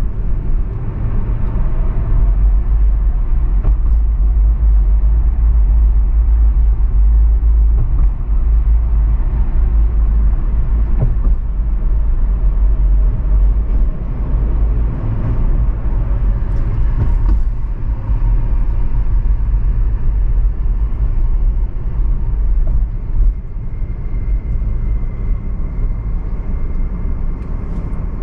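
Car driving through city streets: a steady low rumble of road and engine noise, a little quieter near the end.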